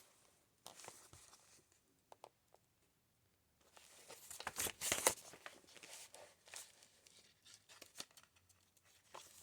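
Paper pages of a thick handmade junk journal crinkling and rustling as they are handled and turned. The sounds are faint with a quiet gap about two to three seconds in, then a stretch of crinkling with the loudest crackle about five seconds in.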